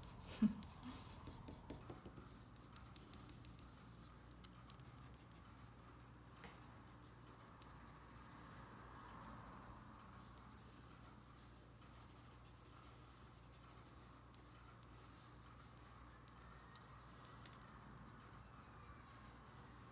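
Pencil scratching faintly on drawing paper in short, steady strokes as fur is sketched in.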